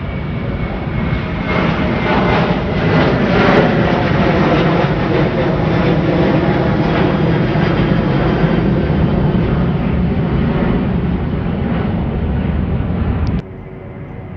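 Boeing 737 jetliner climbing out overhead after takeoff. The roar of its jet engines builds over the first couple of seconds, holds loud and steady, then cuts off suddenly near the end.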